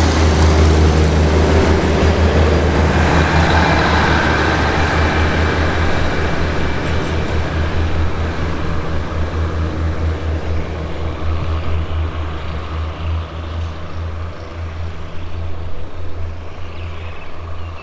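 Three-car THN/NKF diesel railcar train pulling away from the platform, a low diesel drone and running rumble that fade steadily as it draws off down the line.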